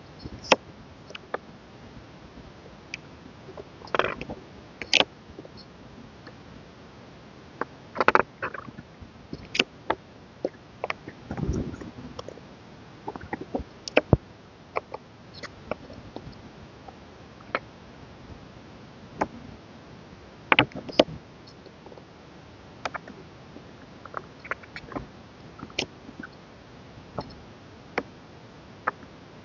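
A K-pop album's contents being handled during unboxing: irregular light taps, clicks and short rustles of card, paper and plastic as items are picked up and set down. There is one duller thump about eleven seconds in.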